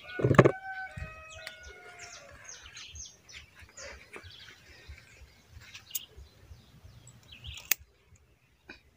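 Small birds chirping in quick, short high notes, led off by a loud thump and a few louder calls held at a steady pitch. Two sharp clicks come later.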